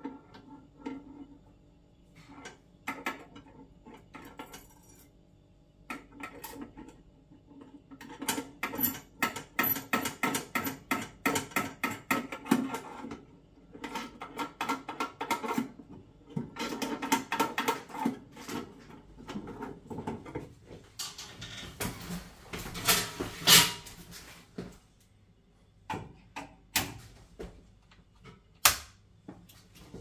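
Small metal clicks, taps and rattles of hand tools and screws as a replacement fan is fastened inside a gas boiler's casing. It comes in runs of quick ticking, with one sharper knock about 23 seconds in.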